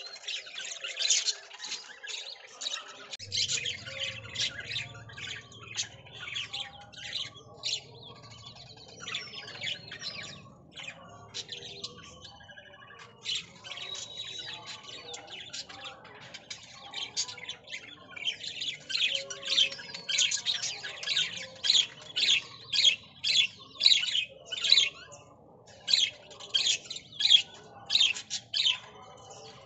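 Small birds chirping continuously, many short, high calls a second, thinning out in the middle and growing busier and louder in the last third.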